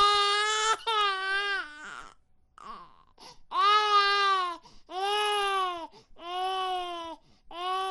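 A series of high-pitched wailing cries, about six, each lasting roughly a second and rising then falling in pitch, with a quieter gap a couple of seconds in.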